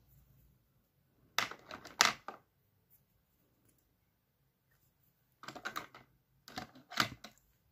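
Small makeup items clicking and clattering as they are handled and set down. There are two short clusters of quick clicks, the second near the end.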